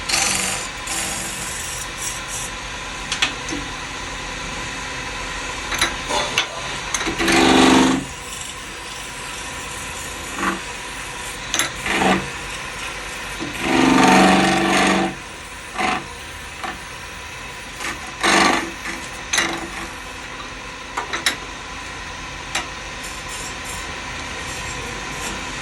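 Lathe turning: a tool scraping and rubbing against the spinning workpiece over a steady machine noise. Louder scraping bursts with a squealing edge come about a third of the way in, for about a second in the middle, and again later.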